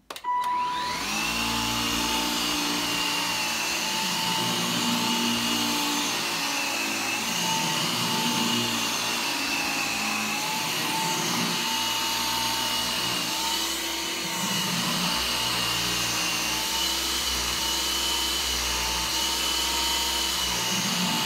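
G-Tech AirRAM Mk2 22-volt, 100-watt cordless upright vacuum cleaner switched on: its motor spins up within the first second, then runs with a steady high whine whose pitch shifts slightly as the machine is pushed about on the floor.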